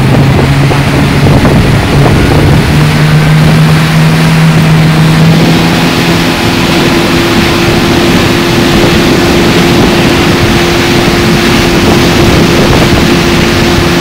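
Outboard motor running at speed as the boat tows a tube, over rushing wake water and wind on the microphone. The motor's steady hum shifts higher about five seconds in.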